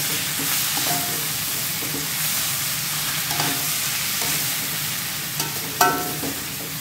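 Sliced bamboo shoots sizzling in an aluminium wok while being stir-fried, with a metal spatula scraping and clinking against the pan a few times.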